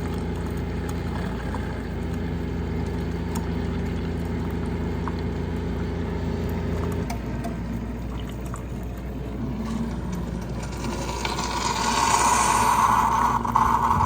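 Keurig K-Select single-serve coffee maker brewing coffee into a mug: a steady pump hum under the sound of pouring, the hum dropping about seven seconds in. Near the end a loud hissing sputter marks the end of the brew cycle, as the last of the water is pushed through.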